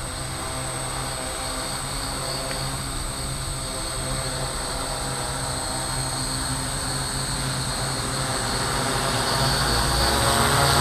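RCTimer RCT800 hexacopter's six Sunnysky 600 kV motors spinning 13-inch carbon-fibre props, a steady multi-toned buzz with a thin high whine over it, growing louder near the end as the craft comes in low and close.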